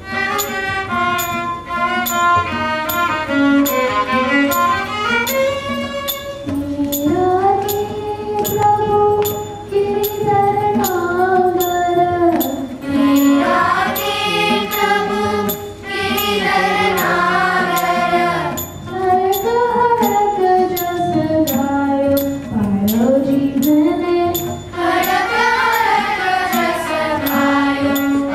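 Indian devotional bhajan performed by a children's ensemble: violins carry the melody for the first few seconds, then a chorus of children's voices sings it over tabla, with small hand cymbals striking a steady beat throughout.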